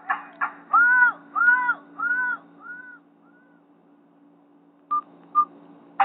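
A Nokia 6790 Surge tone played through a Nokia 216's small speaker: a few quick clicks, then about six arching caw-like chirps, each fainter than the last. Two short beeps come near the end.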